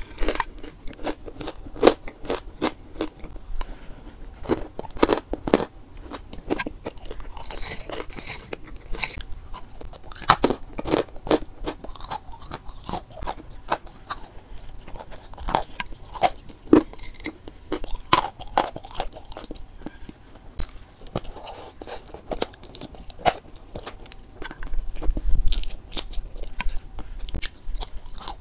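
Close-up crunching and chewing of chalk eaten off a spoon: many sharp, irregular crunches as the pieces are bitten and ground between the teeth.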